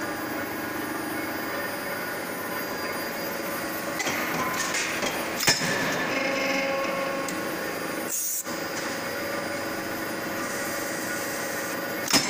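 Steady hum of forging machinery with several held tones. A sharp metallic knock comes about five and a half seconds in, and another near the end.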